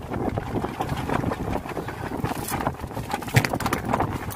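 Water slapping and knocking against the hull of a small wooden boat at rest, with irregular knocks and a sharper knock about three and a half seconds in.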